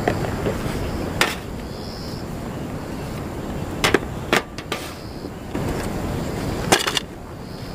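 Metal camping gear set down on a small metal folding table: a stainless-steel flask and a butane gas cartridge knock against the tabletop about four times, over a steady background rumble.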